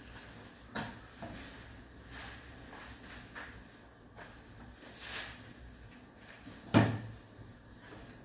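Hard parts being handled and knocked: a click about a second in, a short sliding rub around five seconds, and a loud deep clunk near seven seconds, like a drawer or panel being shut.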